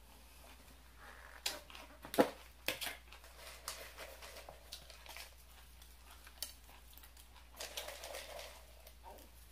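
Crunchy La Choy chow mein noodles being shaken from their can onto a salad, a dry rustling patter near the end. Before that come several sharp clicks and knocks as the can is handled, the loudest about two seconds in.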